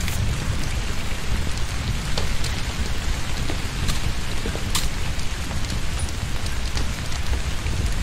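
Torrential rain falling steadily, a dense hiss with a deep rumble underneath and a few sharper drops or splashes standing out, one most clearly about halfway through.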